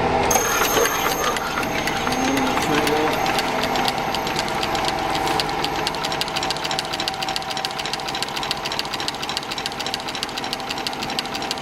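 Puritan stand-up leather stitcher running with its speed turned down: a fast, even mechanical clatter of clicks from the stitching mechanism, starting just after the beginning and stopping near the end.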